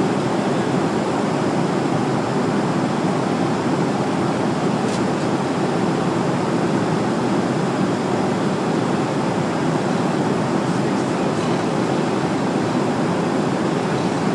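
Steady, even drone of an airliner cabin in flight: engine and airflow noise.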